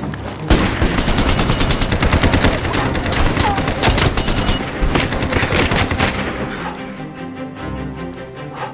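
Heavy battle gunfire: a machine gun firing in rapid bursts mixed with rifle shots, dense from about half a second in and thinning out after about six seconds, when music comes through more plainly.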